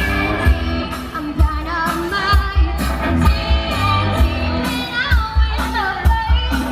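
Rock-pop song with a singing voice over drums and bass, with strong low kick-drum thumps.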